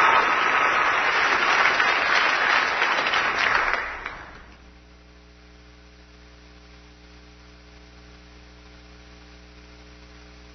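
A large audience applauding, which fades out quickly about four seconds in, followed by a steady electrical mains hum.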